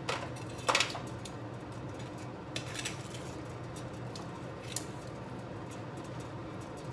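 Metal kitchen tongs clicking and clacking against a pan as a drumstick is turned and basted with sauce: a few sharp clacks, the loudest just under a second in and others near 3 and 5 seconds, over a steady low hum.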